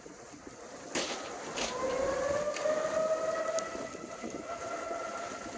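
Outdoor tornado warning siren winding up about a second and a half in, its pitch rising and then holding steady. A brief sharp knock comes about a second in.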